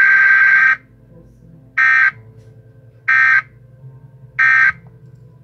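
Loud electronic buzzer-like beeping at one steady pitch: one long beep of over a second, then three short beeps evenly spaced about a second and a quarter apart, each starting and stopping sharply.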